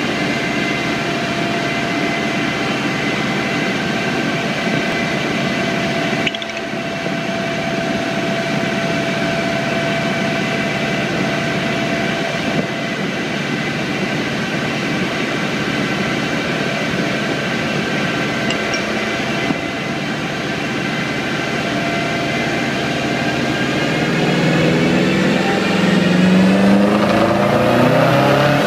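2012 Subaru WRX STI's turbocharged 2.5-litre flat-four running steadily on a chassis dyno. Near the end the revs begin to climb, its pitch rising and getting louder as a pull begins.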